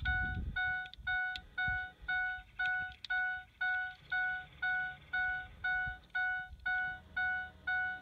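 Vehicle warning chime dinging steadily, an electronic tone about twice a second.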